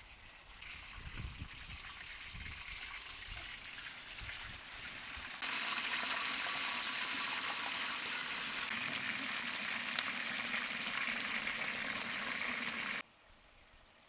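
Pork pieces sizzling as they fry in hot oil in a large wok, a steady hiss that turns much louder about five seconds in and cuts off suddenly near the end.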